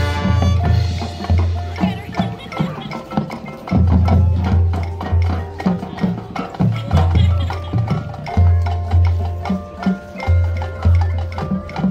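High school marching band playing its field show: busy percussion strikes over long, loud low bass notes, with pitched tones above.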